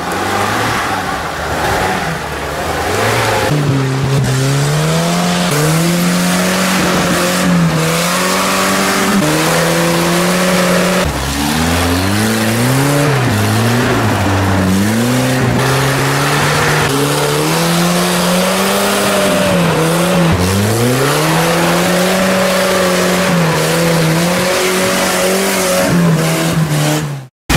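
Off-road 4x4 engines of old Soviet UAZ and GAZ jeeps revving hard under load in mud, the pitch rising, holding and dropping again and again as the throttle is worked.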